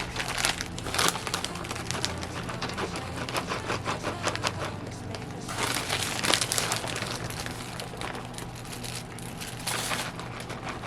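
Salad packaging and a paper coffee filter crinkling and rustling in a few bursts, with small clicks and taps from the handling.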